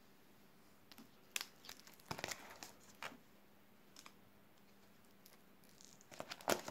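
Clear plastic sleeves in a ring binder crinkling and rustling as the pages are handled and turned, in short bursts, with the loudest cluster near the end as a page is flipped over.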